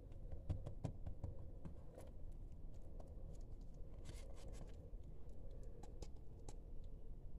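Hands working a filled dough roll on a countertop: soft taps, light thuds and brief rustles, over a low steady hum.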